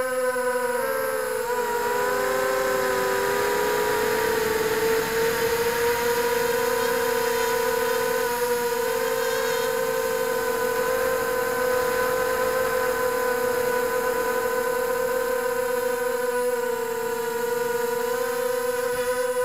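FPV multirotor drone's electric motors and propellers whining at a steady pitch, heard close up through its own onboard camera. The pitch sags and wavers about two to four seconds in, then holds level.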